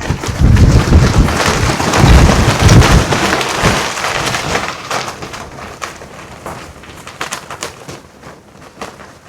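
Strong wind gusting across the microphone, a heavy low buffeting rumble with loud rushing hiss that eases after about four seconds. Satin clothing flaps and rustles in the wind with short crackling snaps, standing out more as the gust dies down.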